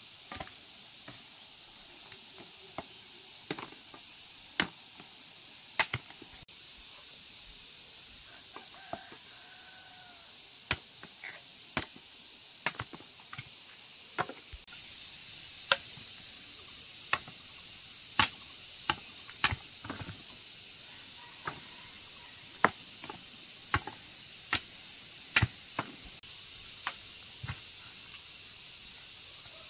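Machete chopping sugar cane stalks: sharp chops at irregular intervals, roughly one a second, over a steady high-pitched drone of insects.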